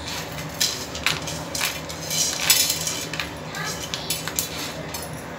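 Whole spices (coriander and fennel seeds, cumin, black peppercorns, cloves, cinnamon and star anise) tipped from a plate onto a dry pan of roasting dried red chillies, landing in a run of irregular clicks and rattles, thickest about two seconds in.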